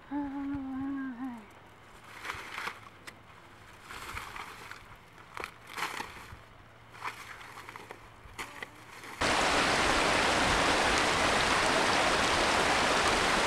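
A woman's short murmur, then faint scattered rustles of dry grass stalks. About nine seconds in, the steady rush of a shallow rocky stream cuts in suddenly and is the loudest sound.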